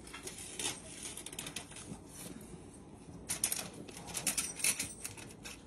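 Light rustling and crinkling of plastic gloves and aluminium foil as soft crab cake mixture is scooped out and set down on a foil-lined baking sheet. The crackling is louder and crisper between about three and five seconds in.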